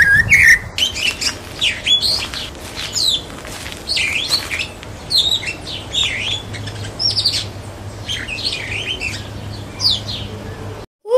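Birdsong: a quick run of high chirps and short whistled calls, one after another, ending abruptly near the end.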